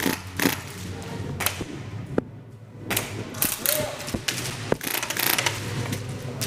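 Airsoft guns firing: irregular sharp shots and short clusters of clicks, with the mechanical clatter of the guns' gearboxes.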